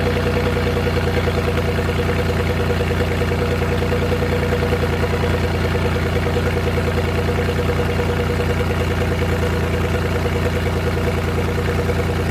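Suzuki F6A three-cylinder engine idling steadily, running evenly with no misfire after its random-misfire fault was traced and repaired.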